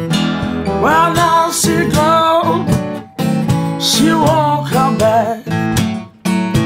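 Two acoustic guitars playing a blues passage, with a high melody line that bends and wavers in pitch over the strummed rhythm.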